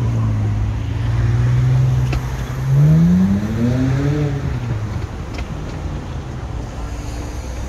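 Motor engine noise: a steady low hum, then an engine rising in pitch about three seconds in as it accelerates, fading over the second half.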